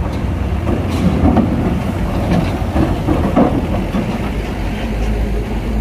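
Ferry's engines running with a steady low rumble as its propellers churn the water, with irregular clanks and clatter mixed in.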